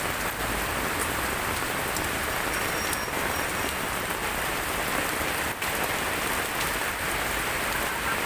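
Steady rain falling, an even dense hiss of rain on surfaces, with a few brief ticks of drops.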